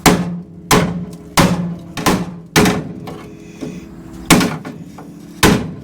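Hammer blows on the steel front frame rail of a 1966 Ford Ranchero, about one every 0.7 s with a short pause midway, each strike leaving a brief metallic ring. The frame is being hammered straight to work out a ripple from curb damage.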